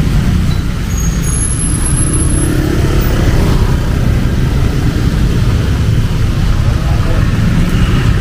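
Road traffic on a rain-soaked city street: a steady low rumble of engines and tyres on wet tarmac, with the hiss of rain over it.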